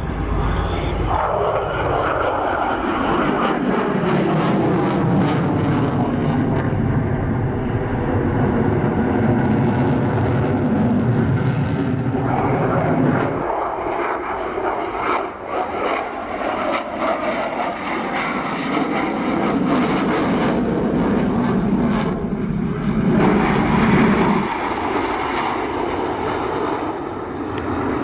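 Airplane engine as an aircraft flies past, its note sliding down in pitch as it goes by. The sound shifts again about halfway through and once more near the end, as the aircraft manoeuvres.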